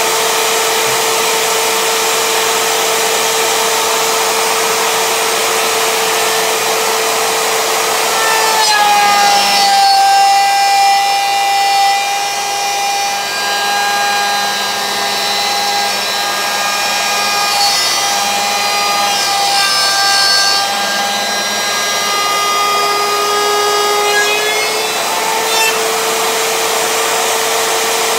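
Router in a router table running with a steady whine while a 1x3 pine board is fed past the bit. The pitch of the whine shifts higher about nine seconds in and drops back to its first pitch a few seconds before the end.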